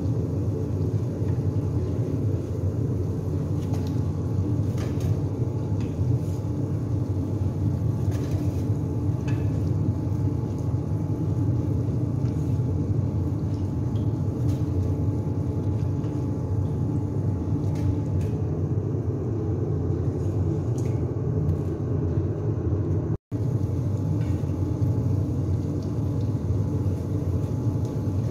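A steady low rumble with faint, scattered crackles from donuts deep-frying in hot oil, broken by a brief cut to silence about 23 seconds in.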